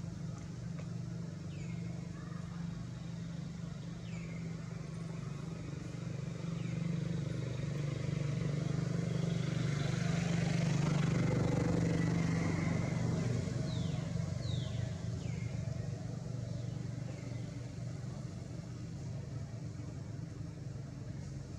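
A motor vehicle's engine runs steadily, growing louder as it passes by about halfway through, with a few short, high, falling chirps now and then.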